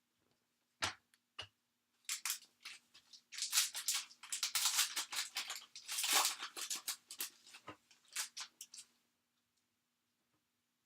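Foil wrapper of a trading card pack crinkling and tearing open, a dense run of crackles lasting about seven seconds, after a couple of light taps near the start.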